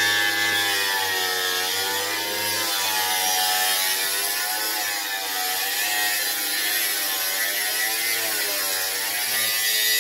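A continuous mechanical whine made of several tones together, its pitch wavering slowly up and down, over a steady hiss.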